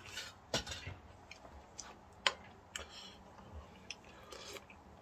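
Person eating spicy ramen broth from a bowl: a handful of light, irregular clicks with faint mouth sounds between.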